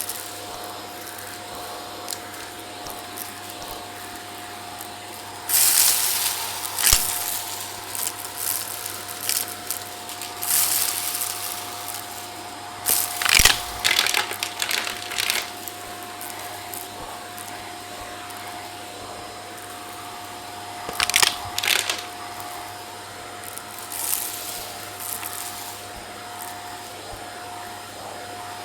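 Vacuum cleaner running with a steady whine and hiss as its brush attachment works over carpeted stairs. Five or six times, for a second or two each, loud crunchy crackling breaks in as debris is sucked up.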